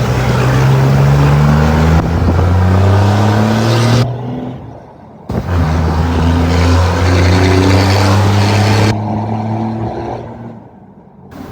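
Ford Cargo 2422 diesel truck engine, with a straight-through exhaust and a comb fitted in the turbo intake, pulling hard with its pitch climbing, then cut off abruptly about four seconds in. After a pause of about a second it pulls and climbs again, and drops off once more a couple of seconds before the end.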